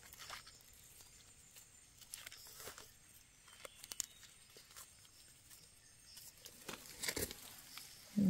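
Faint scratching and rustling of hands in dry leaf litter, and a small knife scraping soil off the base of a young Amanita mushroom. A couple of sharper crackles come about seven seconds in.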